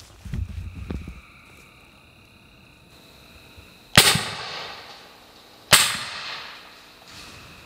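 Two rifle shots about a second and a half apart, each followed by a long echoing tail, fired at a wild hog that the shooter says he hit.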